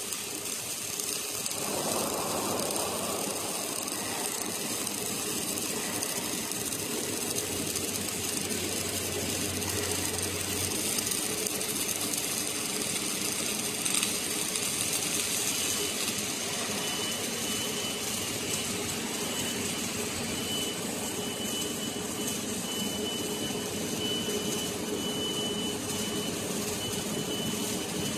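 Steady machine noise from a dual-torch robotic welding station at work, a little louder from about two seconds in. A thin high tone comes and goes from a little past halfway.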